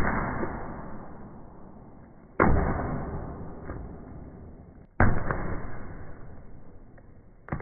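A big ball of homemade pink glue-and-borax slime dropped on a countertop, played in slow motion: three deep, drawn-out thuds about two and a half seconds apart as it lands and bounces, each fading away slowly.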